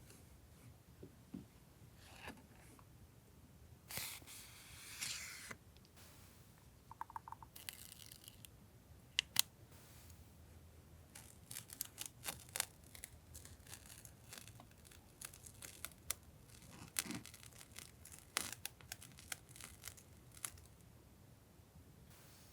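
Stationery packaging being opened by hand: paper or plastic torn and rustled a couple of times about four to five seconds in, then scattered light clicks and taps as the items are handled.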